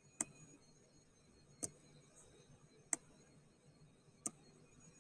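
Four sharp clicks of a computer pointer button, about one and a third seconds apart, made while clicking and dragging to resize an image on screen.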